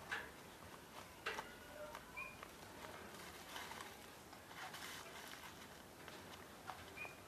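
Faint rustling and crinkling of coloured paper and plastic being handled and folded, with a few light clicks. Two short, high chirps sound faintly, about two seconds in and near the end.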